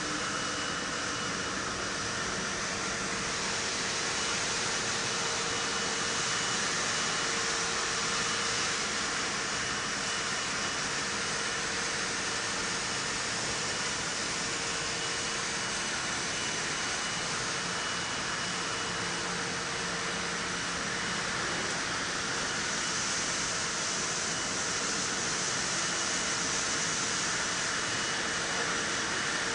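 Steady industrial machinery noise on a copper tube factory floor: an even hiss with a faint high whine and a low hum.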